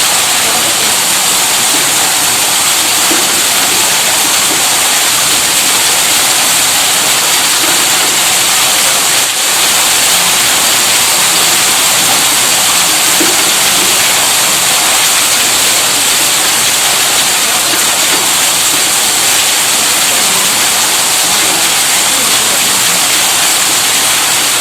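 Water gushing steadily from the outlet of a tube well's electric pump, a loud, even rushing hiss with no audible motor hum.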